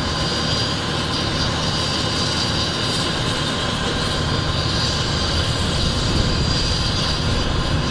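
Idling emergency vehicles' diesel engines, running steadily with a thin high whine over the rumble.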